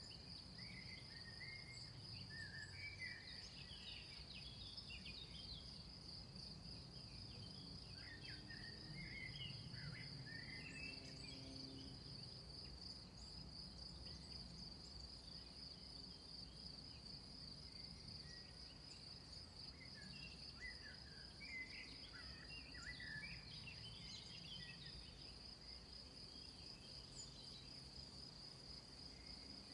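A steady, high-pitched insect chorus trilling without a break, with small birds chirping in three short spells: at the start, around ten seconds in and again past twenty seconds. A faint low rumble runs underneath.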